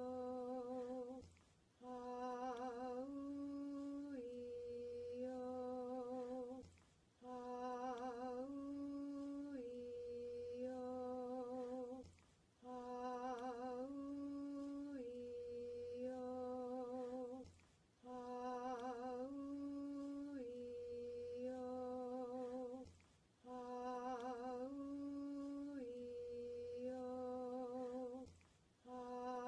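A single voice slowly chanting the vowel sequence 'Ah-oo-ee-oh' over and over. Each four-note phrase lasts about five seconds and steps up and back down in pitch, with a slight waver on one note. A short pause for breath separates the phrases.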